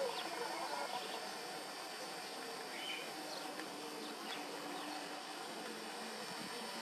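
Outdoor background: a steady faint hiss with a thin high hum, and a few short bird chirps about three seconds in.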